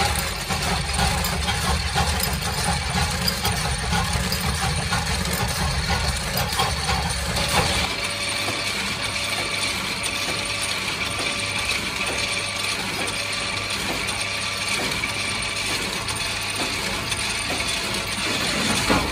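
Workshop machinery running with a continuous fast metallic clatter of small sheet-metal screw shells. About a third of the way in, the low machine hum falls away and a lighter, higher mechanical clatter carries on.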